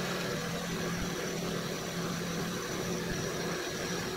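Small milling machine running with a steady motor hum while an end mill cuts along the side of a slot as the table is fed.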